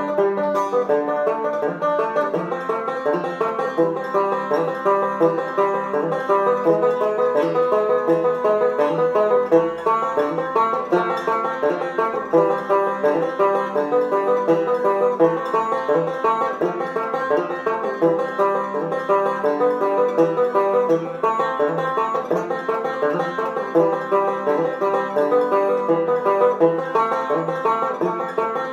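Solo banjo played by fingerpicking, a steady, unbroken stream of plucked notes.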